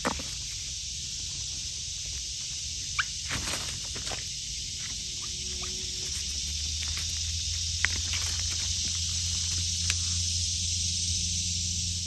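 Woodland ambience: a steady high hiss with a few short squeaky chirps and clicks, about three seconds in and again near eight seconds.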